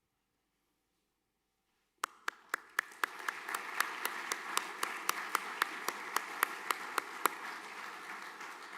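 Audience applauding in a hall, starting suddenly about two seconds in with individual sharp claps standing out, and tapering off near the end.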